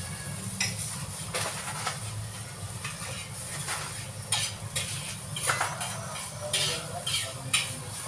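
A spoon clinking against a glass as a drink is stirred, among irregular clinks and clatter of glasses and dishes, over a steady low hum.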